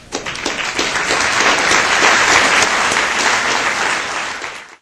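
Audience applauding. The applause starts at once, builds, then cuts off suddenly near the end.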